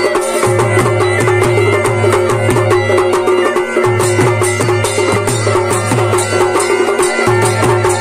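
Live Kumaoni choliya band music: the steady drones and melody of mashakbeen bagpipes over driving drumming in a steady beat.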